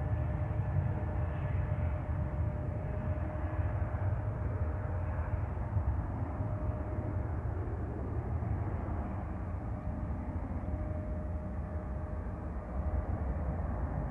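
Jet airliner noise at the airport: a steady low rumble with a faint steady whine above it.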